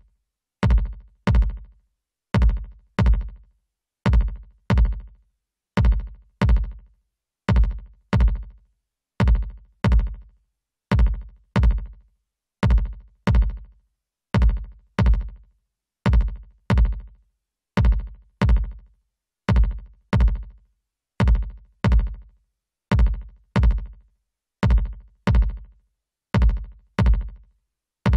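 Electronic drum-machine loop of deep, booming kick drums with a sharp click on each hit. The hits fall in pairs and repeat steadily, each dying away quickly. The loop runs through a software parallel compressor.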